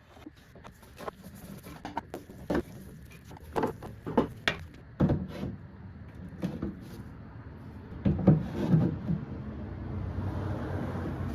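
A run of irregular knocks and clicks, with a few heavier thumps about eight seconds in; music begins near the end.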